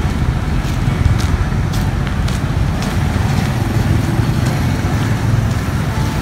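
Street background outdoors: a steady, fluctuating low rumble with a few faint ticks.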